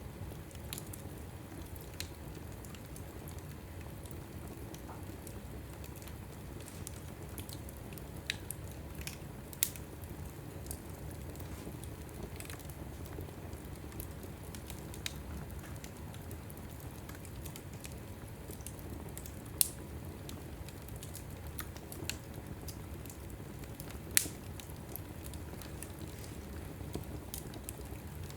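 Wood logs burning in a fireplace: a steady low rush of flame with scattered sharp crackles and pops, a few of them much louder than the rest.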